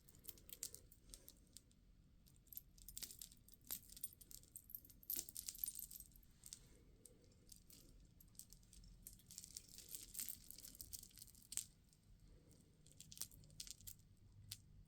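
Small beads lightly clicking and clinking against one another as they are handled and strung, in scattered clusters of quick ticks.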